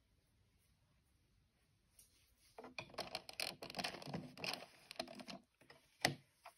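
Faint handling noise at a circular knitting machine: yarn and fingers rustling and scratching against the plastic needles in an irregular run of small clicks, then one sharper click near the end.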